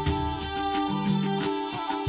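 Instrumental background music with a steady beat, held melody notes and a repeating bass line.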